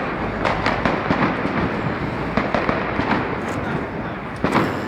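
Fireworks going off in a dense series of sharp bangs and crackles, with a louder bang near the end.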